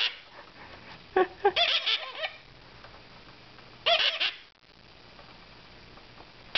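Young mustached parakeets, about two months old, giving short beeping calls at feeding time. The calls come in quick bursts of several rising-and-falling notes, about a second in and again about four seconds in.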